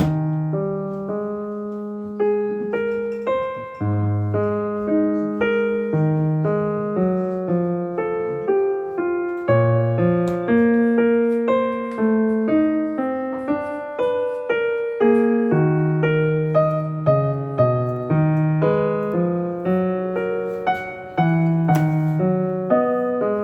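Background music: a gentle solo piano melody with chords, notes struck and fading in a steady rhythm.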